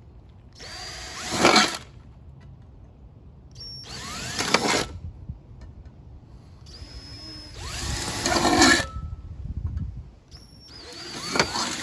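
Cordless drill boring 3/16-inch pilot holes through the side of a steel #10 can: four short runs, each spinning up with a rising whine and grinding as the bit cuts through the metal.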